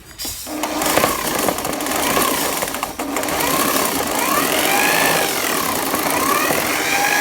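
Handheld electric drill driving a homemade slicing blade, starting up and running while lemongrass stalks are fed through and sliced. Its motor whine rises and falls in pitch over and over as the cutting loads it.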